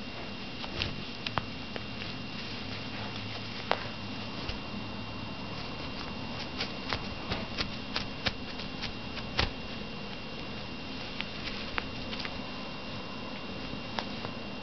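A cat's claws and paws scratching and tapping as she grapples with and kicks a fabric catnip cigar toy on bedding: irregular soft clicks and scrabbles, thickest in the middle stretch.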